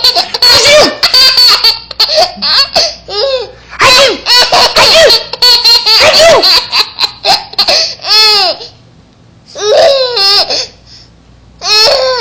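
A young child laughing hard at sneezes: a long unbroken run of high-pitched laughter, then three shorter fits with pauses between them.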